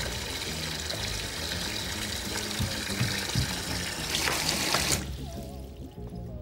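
Tap running into a bathroom basin, with a steady rush of water that stops abruptly about five seconds in. Low sustained background music plays underneath.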